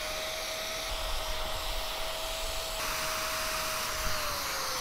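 SKIL power drill running steadily with a high whine as its bit drills through aluminum angle and piano hinge; the pitch sags slightly about four seconds in.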